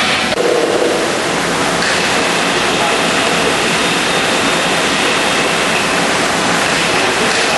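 Wire straightening and cutting machine running: a loud, steady rushing mechanical noise with a faint high whine.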